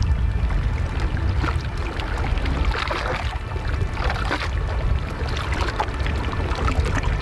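Glacier ice snapping and crackling in the water around a kayak: many small, irregular pops and clicks over a steady low rumble.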